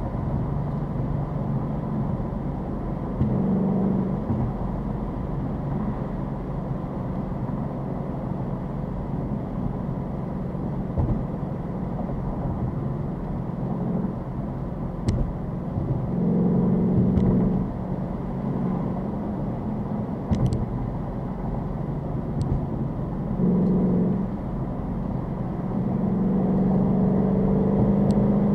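Ford Mustang GT's V8 engine running as the car drives at low speed, a steady low engine note that swells louder several times when the throttle opens. The longest swell is near the end.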